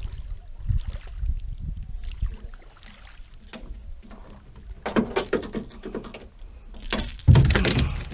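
Clattering knocks and rattles in a small open boat while a caught snapper is handled, with a heavy thump about seven seconds in. Before the knocks start there is a low rumble.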